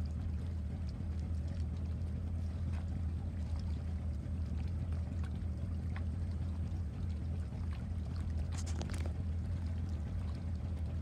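A boat's motor idling, a steady low hum that holds an even level throughout.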